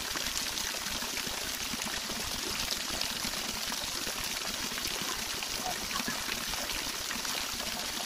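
Steady, even rush of falling and flowing water from a waterfall and the stream channels around it.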